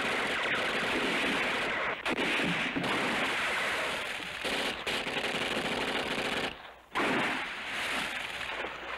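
Sustained automatic gunfire, the rapid shots running together into a continuous rattle, with a brief break about two seconds in and a short drop near the end.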